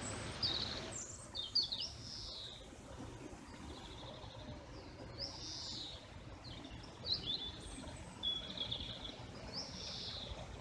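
A songbird singing short, varied whistled phrases and trills every second or two, over low steady outdoor background noise.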